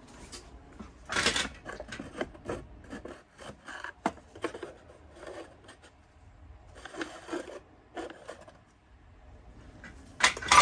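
Irregular scraping, rubbing and clattering of thin sheet metal and tools being handled at a workbench. Short bursts come and go, the loudest about a second in and just before the end.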